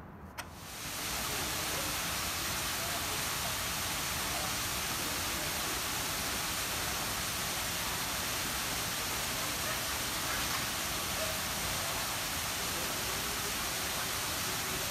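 Steady, even hiss of background noise in a large indoor space, which sets in about a second in and holds at a constant level, with faint distant voices underneath.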